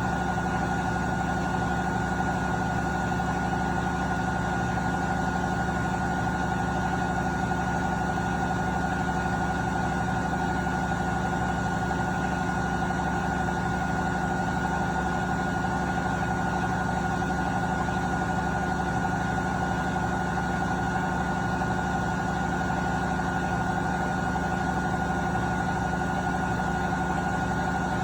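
Beko washing machine on a 1400 rpm spin cycle, its drum spinning at a steady speed: an even motor hum with a constant high whine.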